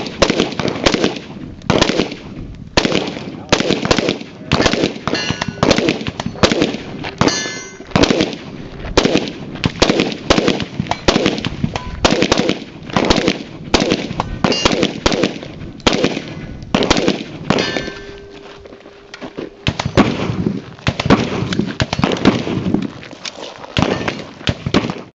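Pistol fired in quick strings during a timed stage, shots coming about two a second, with steel targets ringing after several of the hits. The firing breaks off for about two seconds roughly three-quarters through, then resumes.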